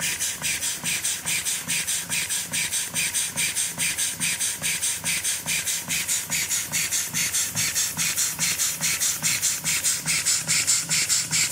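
Model walking beam steam engine running steadily, its cylinder exhausting in a rapid, even beat of hissing puffs, roughly five a second.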